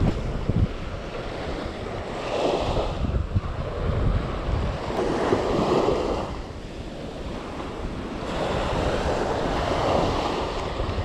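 Ocean surf breaking and washing up a sandy beach, swelling and ebbing every few seconds, with wind buffeting the microphone.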